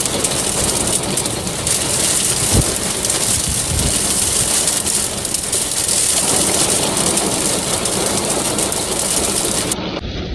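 Torrential rain pouring down in a loud, dense, steady hiss. It eases slightly near the end.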